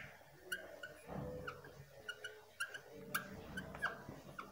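Marker squeaking on a glass lightboard as a word is written: a string of short, high squeaks, some sliding in pitch.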